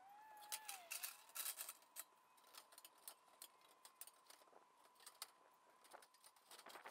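Near silence broken by scattered faint clicks and knocks as a pressed-steel roofing sheet is handled and carried up an aluminium ladder, over a faint steady tone.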